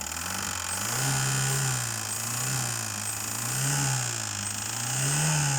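Chery Elara 2.0 engine revved up and down four times in short throttle blips. The revving is done to show a knock in the engine, which the owner suspects is a hydraulic lash adjuster (lifter).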